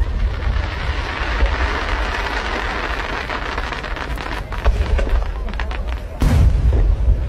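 Fireworks going off: a few seconds of dense hissing crackle, then scattered sharp cracks, and a loud bang about six seconds in.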